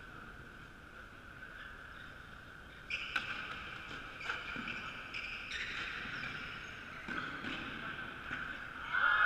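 Athletic shoes squeaking on a wooden sports-hall floor as players run and cut, with a few knocks of footfalls, over a steady high hum. The squeaks start about three seconds in, then come more often and get louder near the end.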